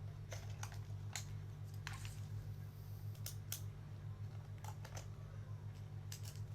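Scattered light clicks and taps from hands handling objects, over a steady low electrical hum.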